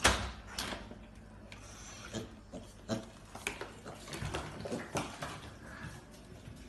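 Piglets grunting, with a string of short, sharp sounds throughout as their trotters tap on a tile floor. A sudden loud sound right at the start is the loudest thing.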